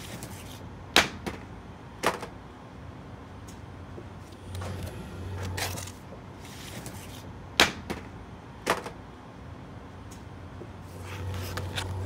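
Pleated cardboard-framed air filters knocking and scraping against the sheet-metal filter rack of a rooftop air-conditioning unit as they are handled and slid into place: a handful of sharp knocks spread through, over a low hum that comes and goes.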